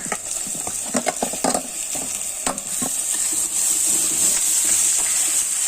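A spatula stirring and scraping in a pan of onion masala frying in hot oil, with irregular knocks for the first few seconds; then a steady sizzle grows louder as the freshly added tomatoes fry.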